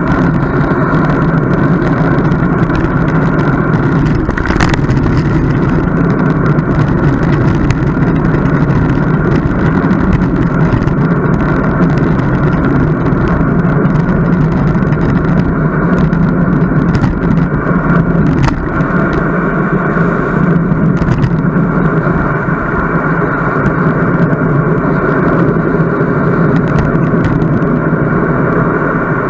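Steady wind and road noise on a camera riding along on a moving bicycle.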